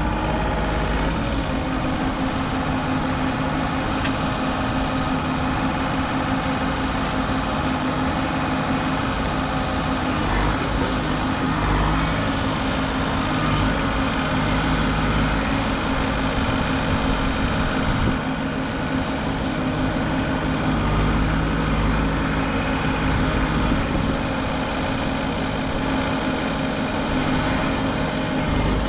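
Diesel engine of a compact excavator running steadily while the machine works.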